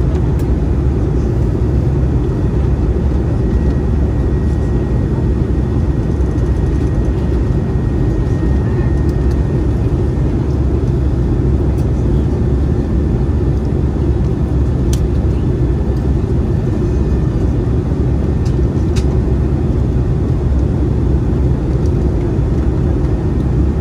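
Steady cabin drone inside an Airbus A320-214, from its CFM56-5B turbofan engines and the airflow over the fuselage, with a faint steady whine above it.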